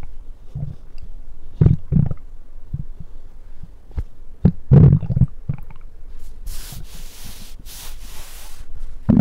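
Close-miked human stomach growling: a run of short low gurgles and rumbles, the loudest about halfway through. A soft hiss follows for a couple of seconds, and a bigger rumble starts at the very end.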